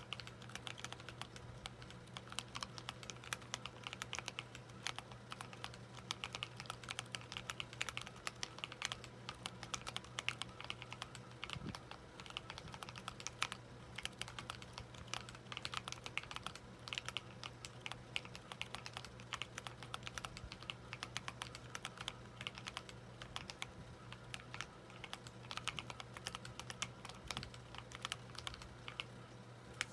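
Mechanical keyboard typing: a Helix split keyboard with lubed Kailh Halo True tactile switches and SA-profile keycaps, keys clacking in a fast, continuous, irregular stream over a faint steady low hum.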